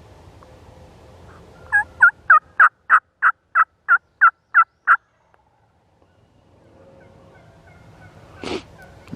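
Turkey yelping: a loud run of about eleven evenly spaced yelps, roughly three a second, lasting a little over three seconds. A single short sharp sound follows near the end.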